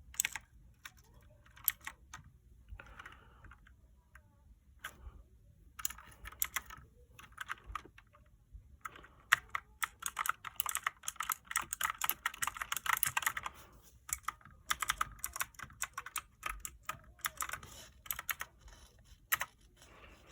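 Mechanical keyboard keys being pressed: scattered clicks, then a fast run of clacking from about nine seconds in to about fourteen, then scattered presses again.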